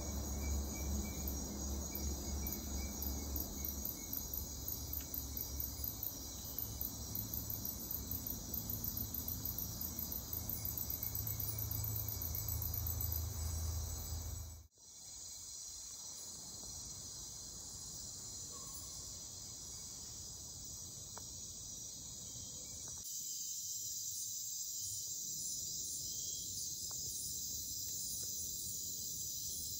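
Chorus of crickets and other insects trilling steadily at a high pitch. A low rumble sits under it for the first half and drops out abruptly about halfway through.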